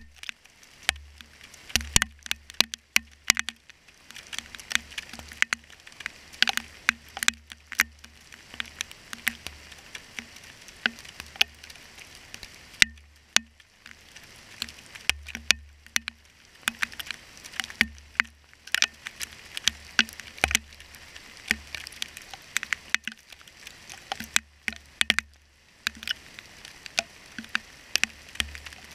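Hailstones striking the ground and the camera close by: a dense, irregular patter of sharp clicks and ticks, some much louder than others. Wind rumbles on the microphone off and on underneath.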